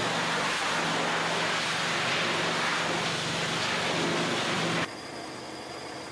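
Steady hiss of plant machinery over a low hum, cutting off suddenly about five seconds in and leaving a quieter hum.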